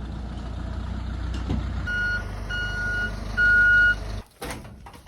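A vehicle engine running with a low rumble, then three short electronic beeps about two seconds in, the last one the loudest; the sound cuts off abruptly near the end.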